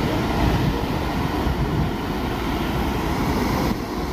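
Steady low rumbling noise, dropping slightly in level near the end.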